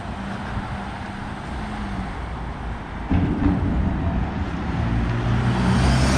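Street traffic: motor vehicle engines and tyre noise from passing cars, growing louder from about halfway through.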